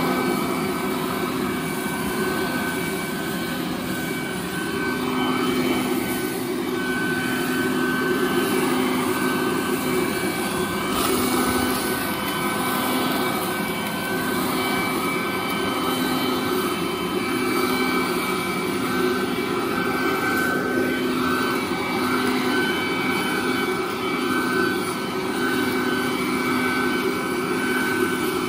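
Parkside PLS 2600 B2 electric leaf blower running steadily: a constant whine from the motor-driven fan over rushing air.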